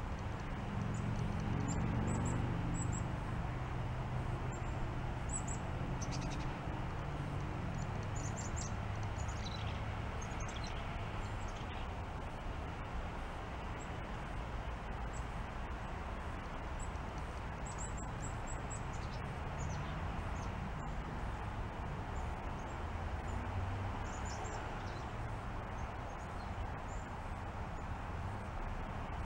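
Outdoor ambience: small birds chirping here and there, short high calls, over a steady low rumble.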